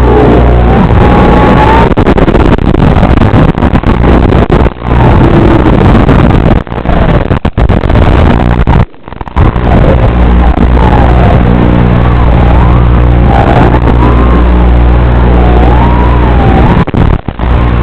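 FPV quadcopter's motors whining, the pitch wavering up and down with the throttle over a steady low buzz, heard through a lo-fi, muffled audio feed. The sound cuts out briefly several times, most deeply about nine seconds in.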